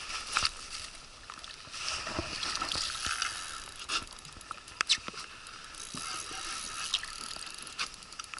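Spinning reel being cranked to wind in a hooked fish: a steady mechanical whirr with a few sharp clicks.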